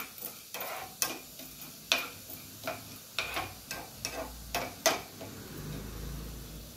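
A steel spoon stirring chana dal roasting in a little coconut oil in a small nonstick frying pan. The spoon clicks and scrapes against the pan about three times a second, stopping about five seconds in.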